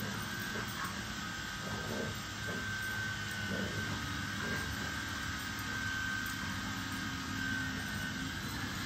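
Steady mechanical hum of a running motor, with a thin high whine over it and a few brief soft sounds scattered through.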